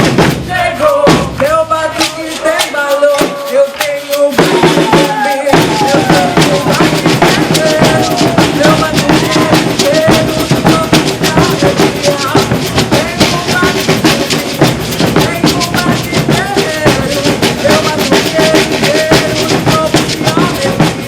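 Live Brazilian percussion ensemble playing a batucada-style rhythm on bass drums and snare drums. The first few seconds hold scattered hits; about five seconds in the full group comes in with a dense, driving beat that keeps on.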